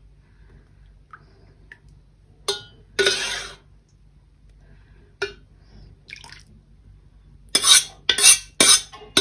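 Cold syrup ladled and poured from a stainless steel pot onto a hot cake in a glass baking dish: a short splash of liquid a few seconds in, then a quick run of sharp clatters from the metal ladle and pot near the end.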